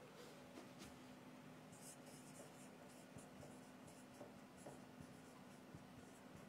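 Marker pen writing a word on a whiteboard: a run of faint, short, high-pitched scratchy strokes.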